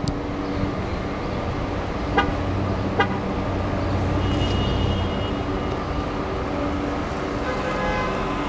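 Road traffic running steadily, with car horns tooting a couple of times and two sharp clicks about two and three seconds in.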